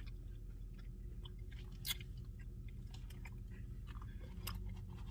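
Close-up chewing with small wet mouth clicks and scattered ticks as someone eats a Dairy Queen Blizzard, over a steady low hum inside a car.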